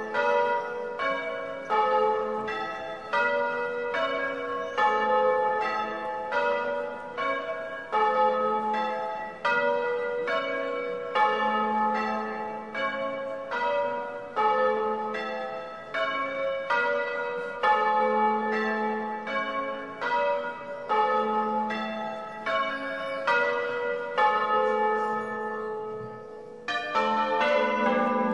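Church bells rung in the Bolognese manner: several bronze bells of different pitch strike in turn, about two strokes a second, each ringing on under the next. Near the end the pattern breaks off briefly and a denser run of strokes with a lower bell prominent begins.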